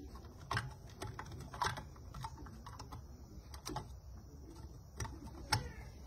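Irregular small plastic clicks and taps as a refrigerator compressor's relay box is fitted back together and pressed onto the compressor by hand, the sharpest click about five and a half seconds in.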